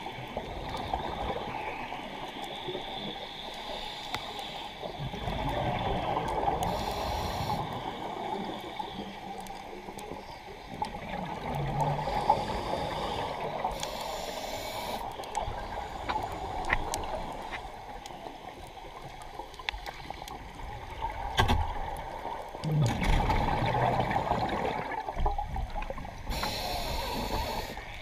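Scuba breathing heard underwater through the camera housing: a steady watery wash, with a gurgling rush of exhaled bubbles swelling up several times and about three brief regulator hisses.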